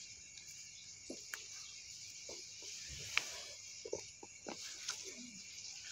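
Night insect chorus, crickets chirring steadily, with a few short faint clicks scattered through it.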